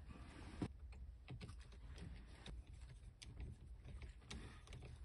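Faint, irregular clicks and ticks of a small ratchet driver turning the mounting screw of a cruise control switch behind a steering wheel, mixed with light handling of plastic parts. One sharper click comes a little over half a second in.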